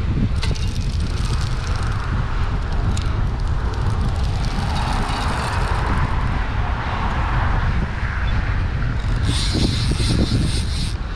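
Wind buffeting the microphone over rushing water, as a permit pulls against a bent rod. About nine seconds in, a bright whirring of a Gomexus 30W lever-drag conventional reel starts, briefly stops, then starts again as it is cranked to bring in line.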